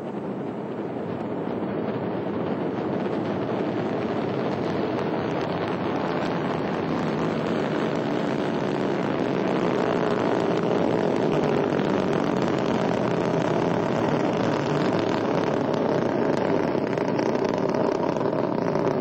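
Ariane 5 rocket climbing just after liftoff, its Vulcain main engine and two solid rocket boosters firing: a loud, continuous rocket noise that builds over the first couple of seconds and then holds steady.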